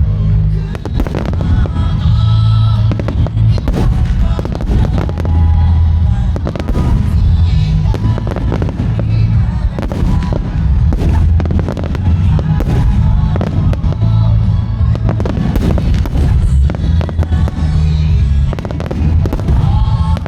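Aerial fireworks shells bursting in a rapid series, about two reports a second, over a loud pop song played through loudspeakers.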